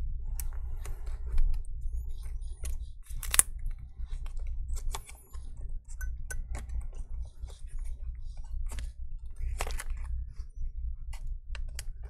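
Irregular light clicks and taps as a MacBook Air A1466 motherboard and fingertips knock against the laptop's aluminium case while the board is slid and pressed into place, with a sharper tap about three seconds in.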